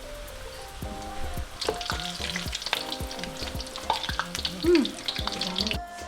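Puff puff batter balls sizzling as they deep-fry in hot oil. The sizzle grows louder about a second and a half in, with scattered clicks of a utensil stirring in the pan.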